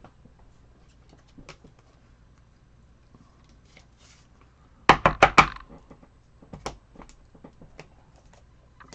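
Hard plastic card holders clacking together as a stack of cards is handled and sorted: a quick run of four or five sharp clacks about five seconds in, with lighter taps and rustling around it and one more clack near seven seconds.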